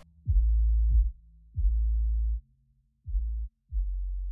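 Background music made of deep electronic bass notes, four in a row, each held for under a second and starting with a quick downward slide in pitch.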